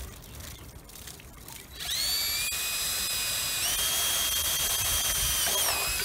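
Cordless drill spinning up about two seconds in as it bores a hole through the side of a water-filled cooking pot. Its steady whine steps up in pitch about halfway through, holds, and winds down near the end.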